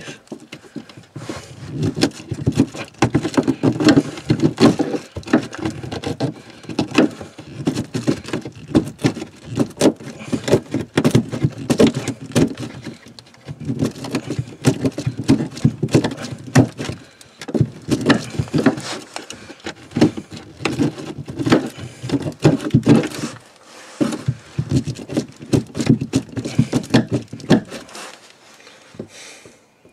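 Quick, repeated hand-tool strokes cutting and scraping at the OSB floor around an RV shower drain hole to enlarge it, with a few short pauses and stopping shortly before the end.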